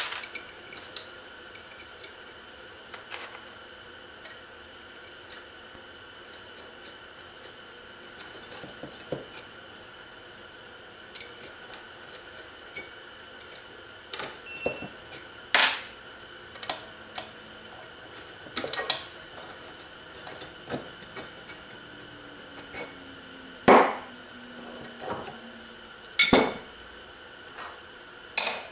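Steel clutch parts and chain of a Zündapp R150S scooter engine clinking and knocking against each other and the aluminium crankcase as they are handled and fitted. The clinks are short and scattered, with a few louder knocks near the end.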